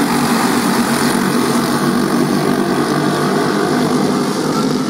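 A pack of racing go-karts with four-stroke Briggs & Stratton Animal engines running at full throttle together, a loud, steady engine drone from the whole field at once.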